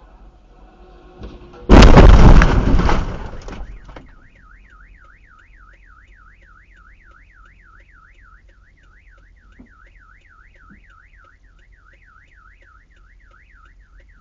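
A loud car collision crash about two seconds in, dying away over about two seconds. Then a car alarm sounds a steady warbling wail, rising and falling about three times a second.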